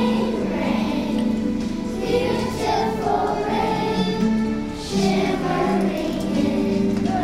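A choir of young children singing a song together, with musical accompaniment.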